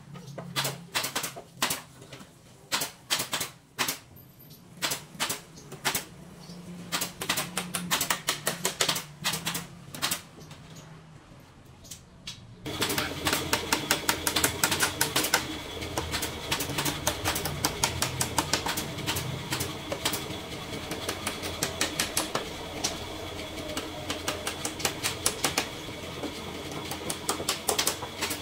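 Rapid, irregular sharp taps and knocks. About halfway through, a steady hum sets in under them and the knocks come faster.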